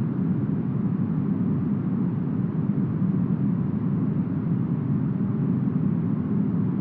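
Heavily smoothed brown noise: a deep, steady rush with no gusts or changes, its weight in the low end and little treble.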